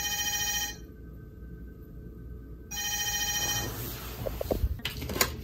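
Telephone ringing twice, each ring an electronic tone about a second long with a pause of about two seconds between, followed by a few light clicks near the end.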